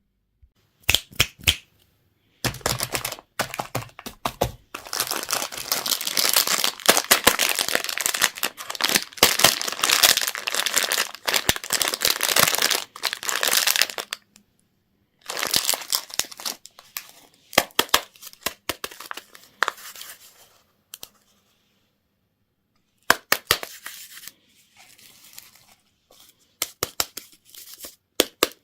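Candy wrappers being crinkled and torn open as sweets are unwrapped, with a long stretch of dense crinkling, a short pause, more crinkling, a quiet gap, then sharp crackles near the end.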